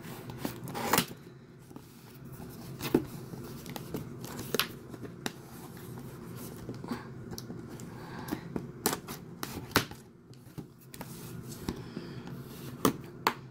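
Scissors cutting and scraping along packing tape on a long cardboard mailer box, with hands shifting the box: irregular clicks, snips and papery rustles.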